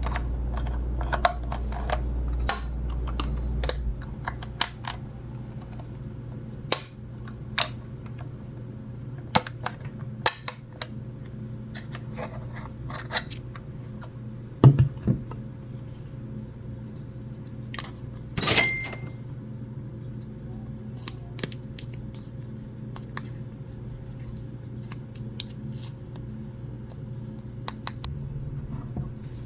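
Small plastic toy pieces being handled: scattered light clicks and taps over a steady low hum, with one brighter clink that rings briefly about two-thirds through.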